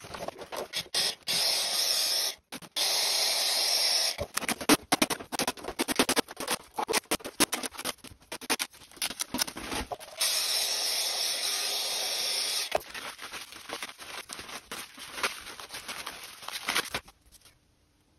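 Air hissing out of an inflatable water ball in three separate stretches, each starting and stopping abruptly, while the ball's plastic crackles and rustles as it is worked loose from inside a sphere of paste-stiffened jute cord.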